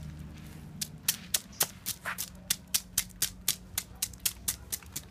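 Knife scaling a large fish, rapid scraping strokes that flick off the scales in quick sharp clicks, about four a second, starting about a second in.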